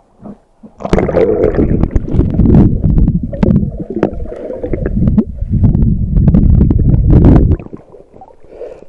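Water churning around an action camera held underwater: a loud, muffled rumble and gurgle, scattered with knocks and clicks. It starts about a second in as the camera goes under and cuts off sharply near the end as it comes back out.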